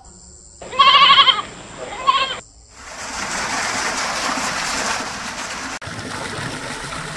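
A farm animal bleats twice, a long wavering call and then a short one, followed by a steady rushing noise from about three seconds in.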